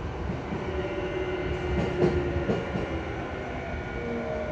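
Minatomirai Railway Y500 series electric train running in a subway tunnel, heard from inside the car: a steady rumble of wheels on rail under the whine of its traction motors, with a few sharp clacks about two seconds in. Near the end the motor whine starts to fall in pitch as the train slows.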